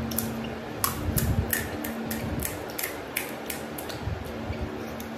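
Crisp fried pani puri shell crackling as thumbs press a hole into its top: a quick run of sharp, brittle clicks starting about a second in and thinning out after about three seconds, over a steady low hum.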